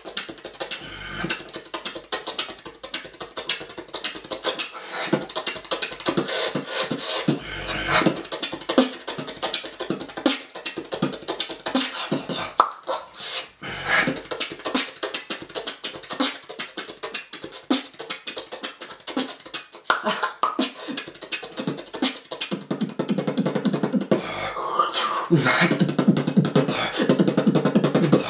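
Solo human beatboxing: a fast, dense stream of mouth-made percussive clicks, snares and hissing hi-hat sounds. In the last few seconds a sustained buzzing bass tone runs under the rhythm.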